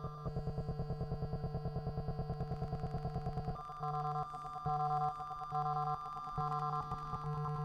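Electronic drone from the SoundScaper iPad sound-design app: stacked steady synth tones pulsing rapidly, then about three and a half seconds in switching to a slower on-off pattern of roughly one pulse a second as the controls are changed.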